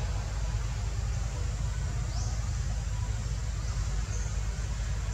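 Steady outdoor background noise: a constant low rumble with an even hiss above it and no distinct event.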